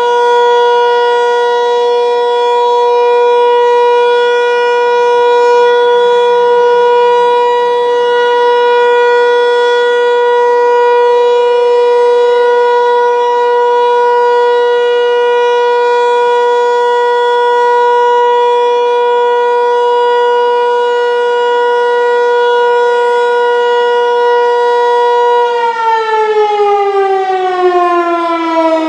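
Federal Signal 508-128 dual-tone tornado siren sounding a steady alert tone. Its rotator is broken, so the head stays fixed and the sound holds level rather than sweeping. About 25 seconds in it begins winding down, the pitch falling.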